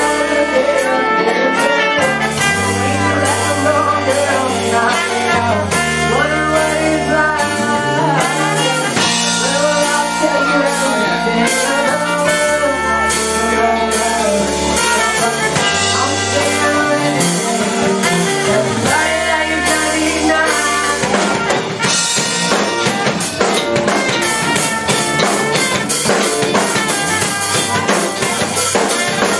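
A live rock band playing: bass, electric guitar and drum kit under a trumpet and a singer at the microphone. About two-thirds of the way through, the long bass notes stop and the drums carry on with dense hits.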